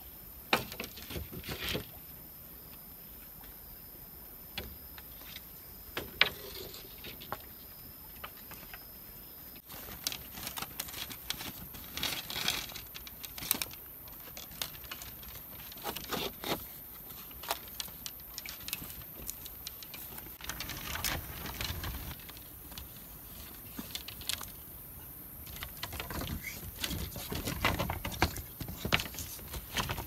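Green bamboo poles being handled and lashed together with thin strips to make a floor: scattered light knocks, clicks and rustling, with a few sharp knocks.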